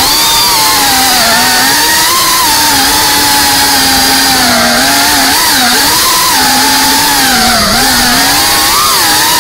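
FPV drone's motors and propellers buzzing loudly and continuously, the pitch wavering up and down as the throttle changes through banking turns, over a steady hiss of rushing air.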